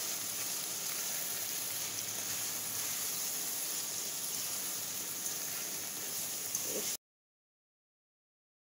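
Salt mackerel with onion, tomato and scallion frying in oil in a pan: a steady sizzle. It cuts off abruptly about seven seconds in.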